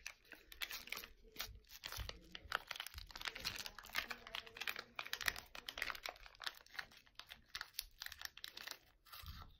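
Clear plastic freeze-pop sleeve crinkling and crackling as it is handled, with irregular small crunches as the frozen orange pop is bitten.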